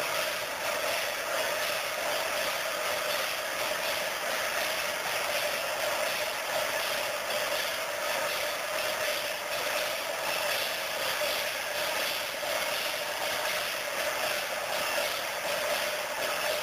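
Steady din of a large, dense crowd, an even hiss-like roar in which no single voice stands out.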